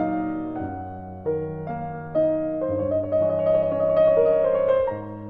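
Background piano music: slow notes and chords struck every half second or so, each left to fade.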